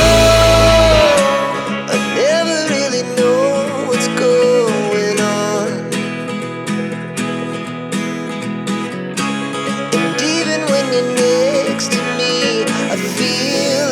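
Background pop music: strummed acoustic guitar under a melody line, with the deep bass dropping out about a second in.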